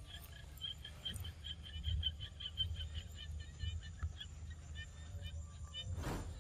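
A rapid high chirping call, about seven chirps a second, breaking up into scattered chirps after about three seconds, over a low rumble. About six seconds in comes a short loud rustle as a monkey's hand brushes the microphone.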